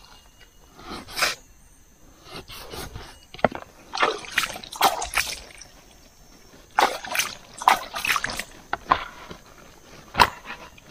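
Raw pangasius catfish being cut with a kitchen knife on a banana leaf and the wet pieces handled onto a leaf-lined plastic plate. Irregular wet slaps, scrapes and leaf rustles, with a few sharp knocks.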